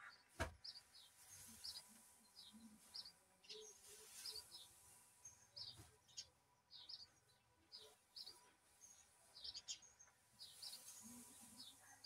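Faint chirping of small birds, short high chirps repeating about twice a second, with one sharp knock about half a second in.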